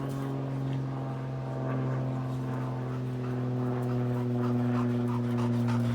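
A steady engine drone whose pitch falls slowly, with a dog panting faintly alongside it, the panting growing louder near the end.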